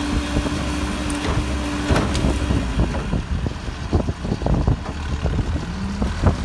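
Manitou telehandler's diesel engine running while its bucket tips manure into a trailer. A steady whine is held for the first few seconds, and a lower one comes near the end, over repeated knocks and thuds as the manure drops.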